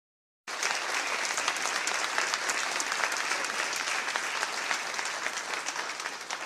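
Audience applauding. The applause cuts in suddenly about half a second in and thins out near the end.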